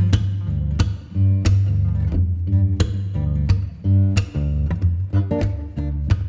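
Background music: plucked and strummed acoustic guitar over a steady bass line, with regular note attacks.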